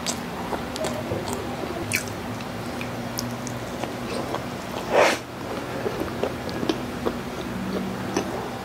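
Close-miked chewing and mouth sounds of eating a soft steamed bao bun dipped in goto rice porridge, with many small clicks and one louder noise a little past halfway.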